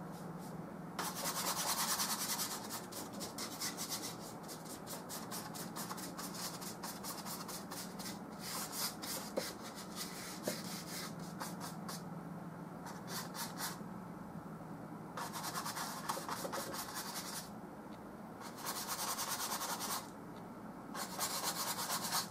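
Bristle brush scrubbing oil paint onto a canvas in bouts of quick back-and-forth strokes, with short pauses between bouts. A steady low hum runs underneath.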